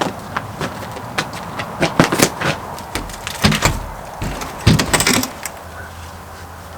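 A new wooden door frame being worked into a wall opening to test its fit: irregular knocks and bumps against the framing, loudest about two seconds in, with a scrape about five seconds in.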